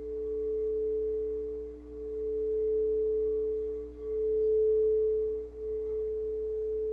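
Singing bowl ringing on in a long sustained tone: two steady pitches, the sound swelling and dipping about every two seconds.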